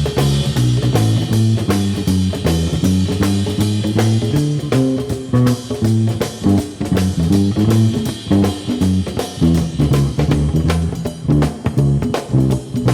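Background music with electric guitar, bass guitar and a steady drum beat.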